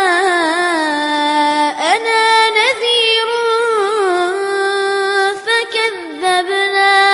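Quran recitation by a single high, melodious voice drawing out long notes that glide up and down over the verse's vowels, with brief breaks for breath.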